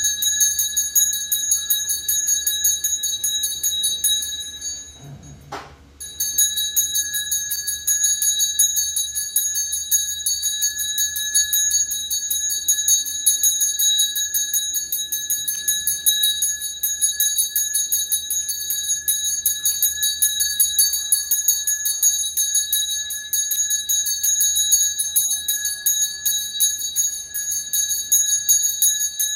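Taoist ritual brass hand bell shaken rapidly and continuously in a steady high jingling ring. It breaks off briefly about five seconds in, then resumes.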